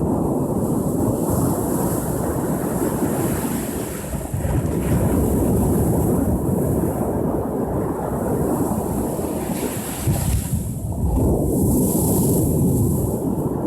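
Ocean surf washing onto the shore in a continuous rushing noise that swells and eases, dropping back briefly about four seconds in and again near ten seconds before the next wave surges in.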